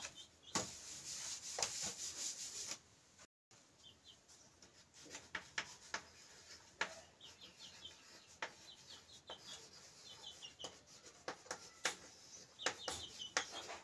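A duster rubbing a chalkboard clean for about two seconds. After a short break, chalk taps and scratches across the board as letters are written.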